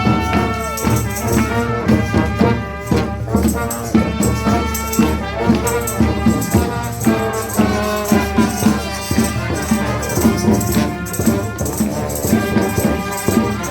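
Street brass band playing live: sustained horn lines over a steady driving beat of drums and rattling shaker-type percussion.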